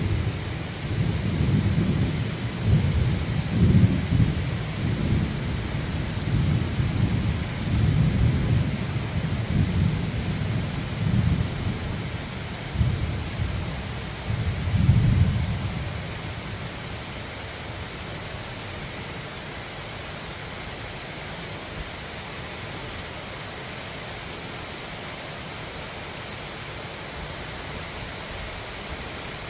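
A long roll of thunder rumbling and swelling over rain, loudest about four seconds in and again near fifteen seconds, then dying away after about sixteen seconds and leaving the steady hiss of rain.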